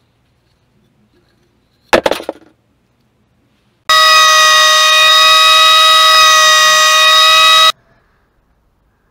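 Benchtop thickness planer running with a loud, steady, high-pitched whine for about four seconds, starting and cutting off abruptly. A short knock comes about two seconds in, before it.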